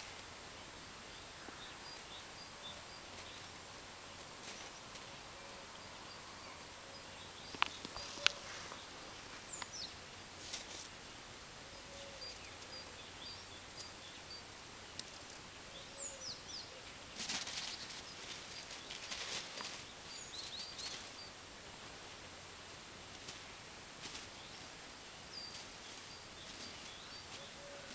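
Quiet outdoor ambience with small birds chirping now and then, short high notes and a few quick downward whistles. Two sharp clicks come about eight seconds in, and a spell of rustling, crunching noise comes around two-thirds through.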